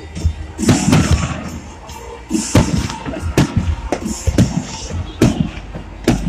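Fireworks display: aerial shells bursting with deep booms about once a second, with crackling and hissing sprays from the bursting stars in between.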